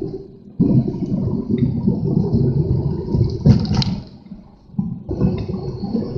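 Strong gusty wind buffeting the microphone, a loud rushing rumble that drops away in short lulls about half a second in and again around four to five seconds in.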